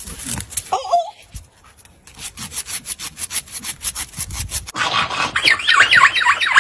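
Rhythmic scraping, several strokes a second, then from about five seconds in a rapid run of high-pitched squeaks.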